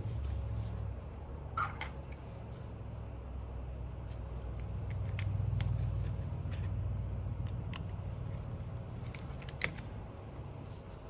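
Scattered light clicks and ticks of small hand tools and small parts being handled during phone repair work, over a steady low hum.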